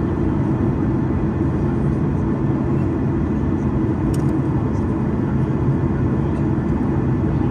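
Steady low rumble of a Boeing 737's engines and rushing air, heard inside the passenger cabin on approach, with a faint click about four seconds in.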